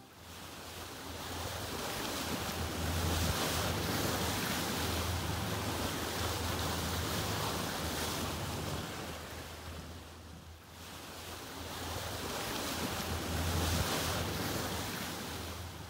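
A rushing, wind-like noise over a low steady hum, swelling up, dipping about ten seconds in, then swelling again.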